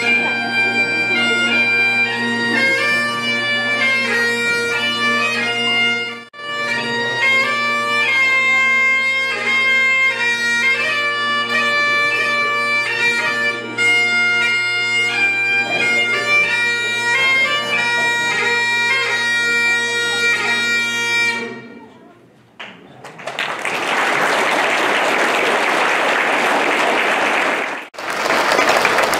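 Highland bagpipe playing a tune over its steady drones, which stops a little over two-thirds of the way through. After a short lull, an audience applauds.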